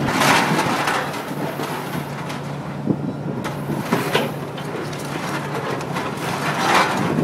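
Cat 345B excavator's diesel engine running steadily as its grapple loads scrap steel into a melt pot. Sharp metal clanks come about three and four seconds in, with swells of rattling noise near the start and near the end.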